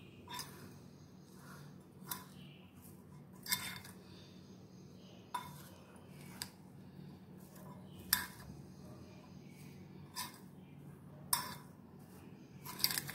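A metal spoon clinking against a glass bowl while stirring grated paneer filling. There are about nine short, sharp clinks at irregular intervals a second or two apart.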